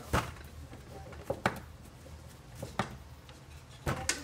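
Several sharp knocks and taps on a floured board, some in quick pairs, as dumpling wrappers are rolled out by hand with a metal rolling pin, over a low steady hum.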